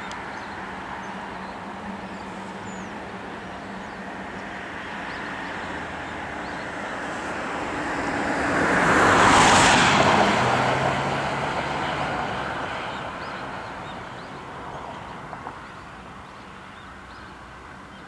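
A road vehicle passing by, its tyre and engine noise swelling to a peak about nine seconds in and then fading away.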